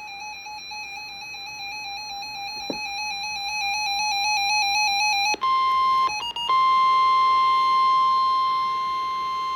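An electronic tone trilling rapidly between two close pitches for about five seconds. Then the National Weather Service's 1050 Hz warning alarm tone starts: a single steady high beep that breaks up briefly before holding.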